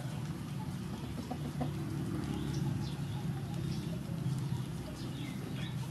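Rooster clucking low and steadily, with small birds giving short high chirps in the background.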